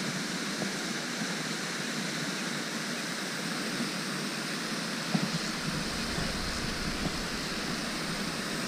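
Steady rushing hiss of water from the pond's spray fountains, with a few faint ticks.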